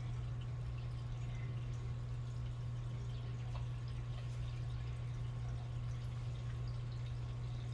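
A steady low hum with faint, scattered small ticks.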